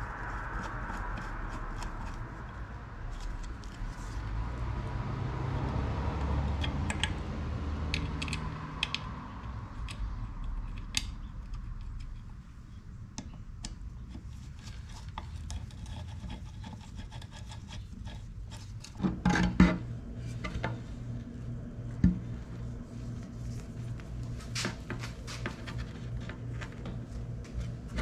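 Hand screwdriver driving small screws that fasten pickup coils into a motorcycle stator cover, with rubbing, scraping and small clicks of the parts and wires being handled. There are a few sharper knocks about two-thirds of the way through.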